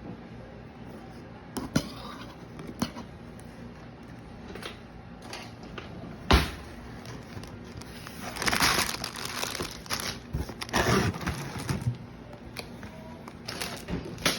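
A cardboard LEGO box being opened and its packaging handled: scattered clicks and a single loud knock about six seconds in, then crinkling and tearing rustles in the second half.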